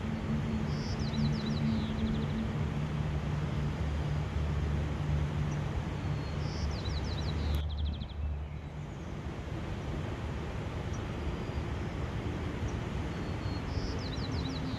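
Outdoor ambience: a steady rushing noise with a low hum under it, while a small songbird sings the same short song three times, about six seconds apart. Each song is a high note, a quick run of falling notes, then a short trill. The background changes abruptly about halfway through.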